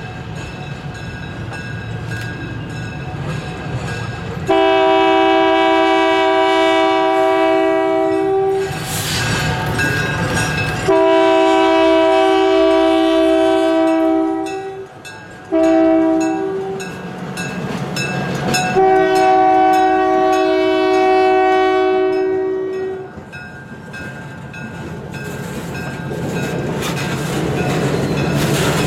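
Locomotive air horn sounding a chord in the long-long-short-long pattern, the standard signal for a grade crossing. Under and after it is the low rumble of the train running.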